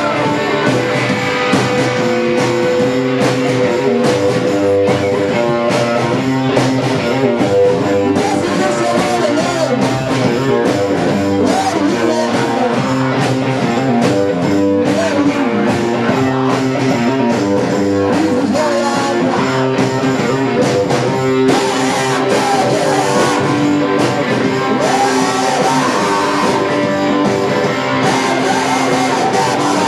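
Live rock band playing loud: distorted electric guitar over a drum kit, recorded from within a small club.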